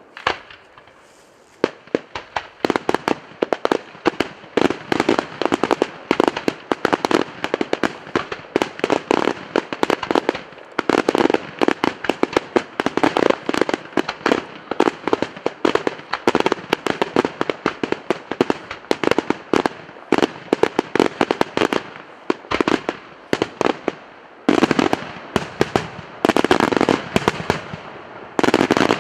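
Daytime fireworks display: aerial shells bursting into dense, rapid volleys of sharp firecracker bangs, almost without break, with a short lull about three-quarters of the way through.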